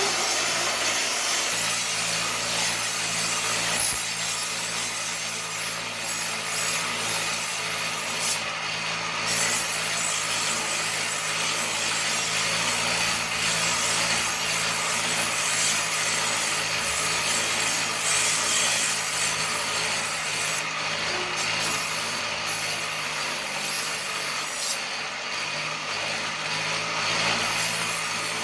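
Household knife being sharpened: steel blade scraping against an abrasive without pause, with a steady low hum underneath.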